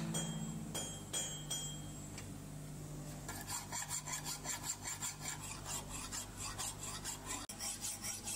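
Hand file rasping over the bevel of a forged axe blade in regular back-and-forth strokes, about three a second from about three seconds in, after a few separate strokes.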